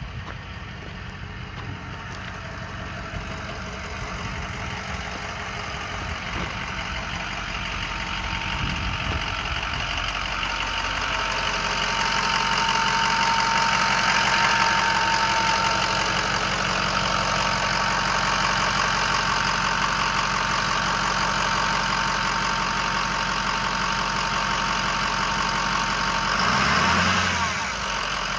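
Ford 6.0L Power Stroke V8 turbo diesel idling, with a steady whine over the engine. It grows louder about ten seconds in, as the open engine bay is reached.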